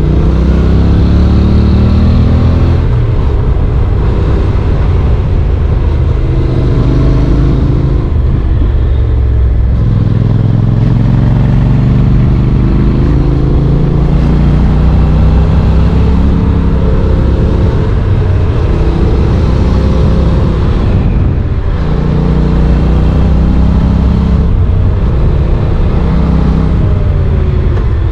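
Honda NC750X's parallel-twin engine heard onboard while riding, its revs rising and falling with the throttle and gears, with a couple of brief dips in the sound.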